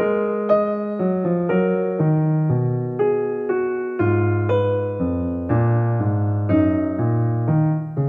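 Background piano music, single notes and chords changing about twice a second.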